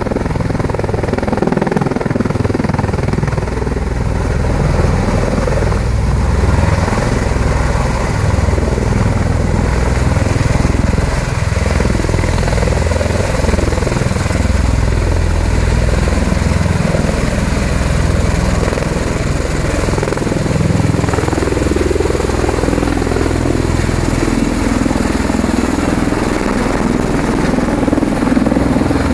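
Bell Boeing V-22 Osprey tiltrotor with its nacelles up in helicopter mode, lifting off and hovering: the two large proprotors beat steadily low down under the loud, steady run of its turboshaft engines.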